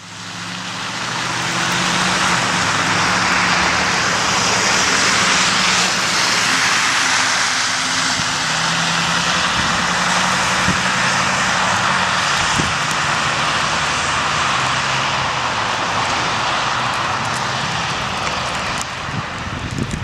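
A vehicle engine running steadily under a loud, even rushing noise.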